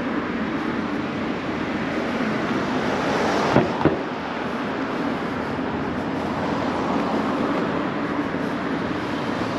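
Steady noise of road traffic, with two sharp knocks in quick succession a little past three and a half seconds in.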